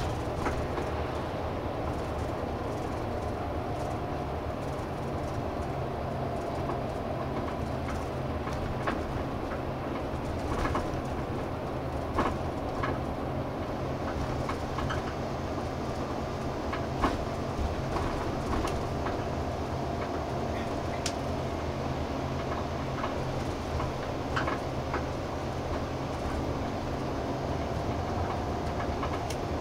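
Route bus on the move, heard inside the cabin: a steady engine hum and road rumble, with a faint steady whine and scattered clicks and knocks from rattling fittings.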